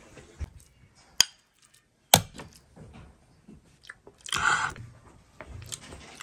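Close-up eating sounds: chewing of cooked mallow greens, with a couple of sharp clicks of a utensil against a ceramic plate in the first half and a brief louder noisy mouthful sound a little past the middle.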